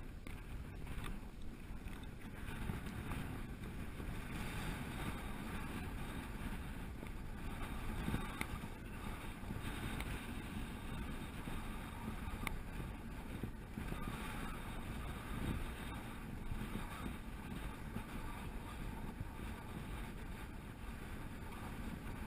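Wind rumbling on a head-mounted action-camera microphone, a steady noise with a few faint sharp clicks.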